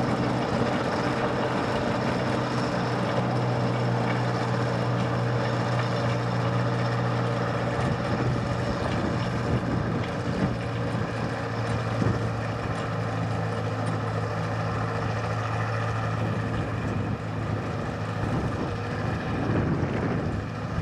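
Diesel engine of narrow-gauge locomotives TU6D and ESU-2a running steadily with an even hum as the pair move slowly away along the track.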